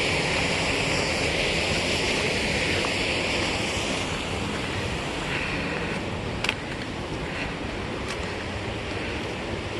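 Creek water rushing steadily, slowly growing quieter, with one short tap about six and a half seconds in.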